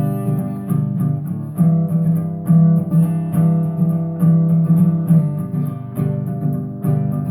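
Acoustic guitar music: plucked chords struck about once a second, each left to ring.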